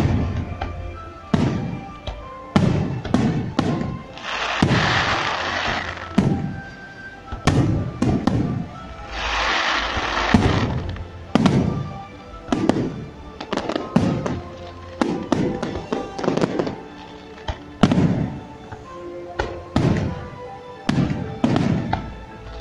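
Fireworks display: aerial shells bursting in a steady series of sharp bangs, roughly one a second, with two stretches of dense crackling, a few seconds in and again about ten seconds in. Music plays underneath.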